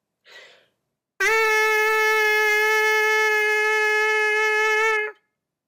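A trumpet mouthpiece buzzed on its own, without the trumpet: the player's lips buzz into it on one steady held note for about four seconds, starting a little over a second in after a short breath.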